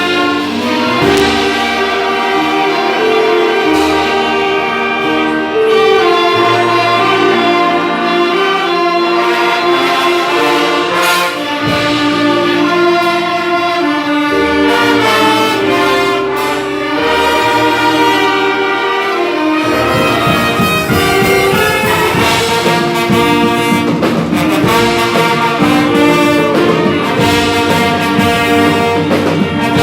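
Orchestra playing a piece led by its brass, with held notes moving in steps. About two-thirds of the way through, a busier low accompaniment joins and the sound gets fuller.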